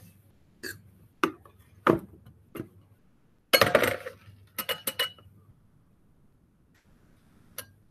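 Metal measuring cup tapping and clinking against a metal baking pan as a crumbly cake-mix crust is pressed down. Irregular knocks and clinks come thickest about halfway, with one brief ring.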